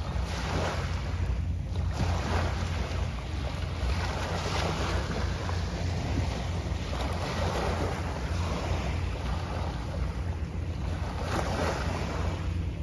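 Wind buffeting the microphone with a steady low rumble, over small waves washing onto a sandy shore, the wash swelling and easing every couple of seconds.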